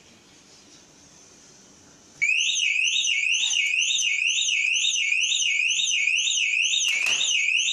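Mobile phone store anti-theft security alarm going off about two seconds in: a loud, high-pitched electronic siren that sweeps up and down rapidly, about two and a half times a second, with a short knock near the end.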